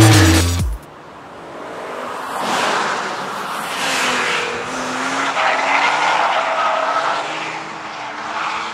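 Background music cuts off under a second in, then a BMW drift car slides past: its engine revs and wavers in pitch over tyre squeal that swells and eases as the car goes by.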